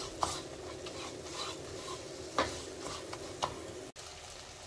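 A silicone spoon stirring and pressing cooked-down tomato masala in a heavy-bottomed pan, a few short soft scrapes over a low sizzle as the tomatoes are mashed into a thick gravy. The scraping stops suddenly about four seconds in, leaving the sizzle.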